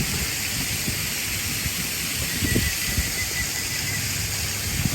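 Steady outdoor hiss with an uneven low rumble underneath, and a faint thin whistle-like tone through the middle.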